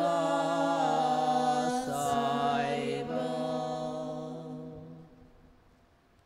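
Devotional chant sung on a long held note, the voices sustaining one chord with a slight waver before fading away about five seconds in.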